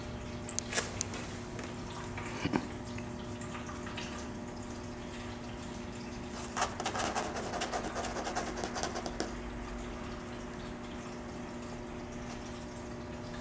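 Scattered small taps, scrapes and rustles of a kitten pawing a cloth toy mouse on a tabletop and being handled, busiest a little past halfway, over a steady low room hum.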